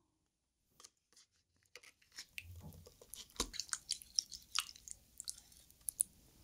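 Wooden utensils clicking and scraping against an abalone shell while a braised abalone in thick spicy sauce is pried loose, with small wet squelches; the clicks come thickest through the middle, the sharpest about three and a half seconds in.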